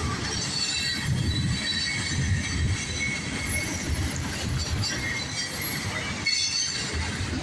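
Freight train tank cars rolling past at close range: a steady rumble of wheels on the rails with high-pitched wheel squeal.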